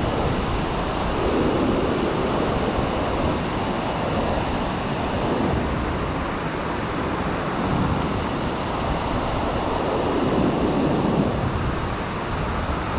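Ocean surf breaking and washing in as a steady roar of noise, with wind buffeting the microphone.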